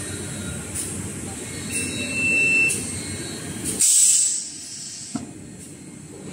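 Kitchen towel paper rewinding machine running with a steady mechanical din and faint repeated clicks. A brief high beep sounds about two seconds in, and just before four seconds a short loud burst of compressed-air hiss, after which the running is quieter.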